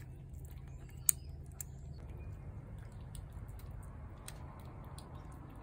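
A cat eating wet shredded chicken from a plate: faint wet chewing and smacking clicks over a steady low background rumble, with one sharper click about a second in.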